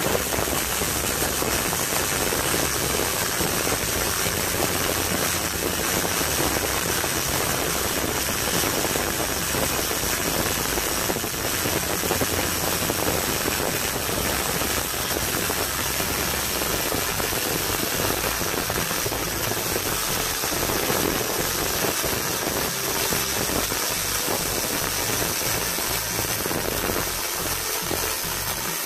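MIG welding arc on aluminium alloy plate, burning without a break as the first bead of a vertical fillet weld is laid: a continuous crackling hiss.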